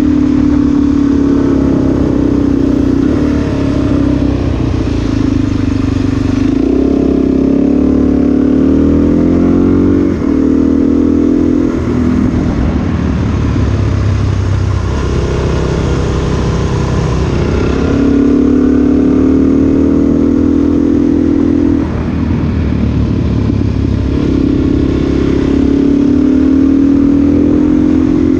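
Dual-sport motorcycle engine running at road speed, the revs dropping and climbing again several times as the throttle is rolled off and back on, over wind rush.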